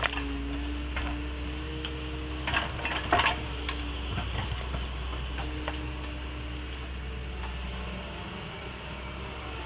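Doosan 140 wheeled excavator running as it digs: a steady engine drone with a whine that comes and goes, and a few clanks about two and a half to four seconds in.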